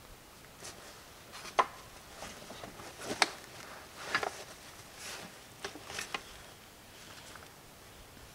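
A backpack and its gear being handled against a log wall: a run of sharp clicks and knocks, the loudest two about a second and a half apart, with some fabric rustling in between.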